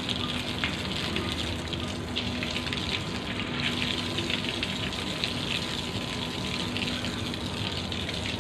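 Running water splashing steadily as sandstorm dust is washed off surfaces, with a faint steady hum underneath.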